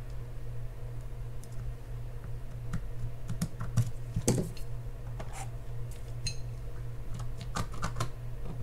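Irregular light clicks, taps and scrapes of small steel screwdrivers working in a Penn Spinfisher 6500SS's metal spool, prying at a frozen drag washer to free it, over a steady low hum.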